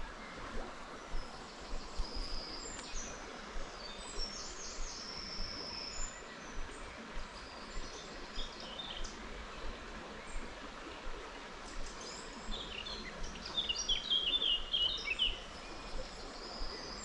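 Wild forest stream running steadily, with songbirds singing over it in short chirps and trills, a quicker run of high notes near the end.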